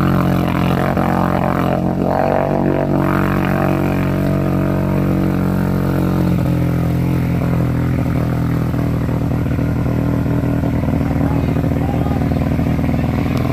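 ATV engine running at a steady speed, a constant low drone that neither rises nor falls.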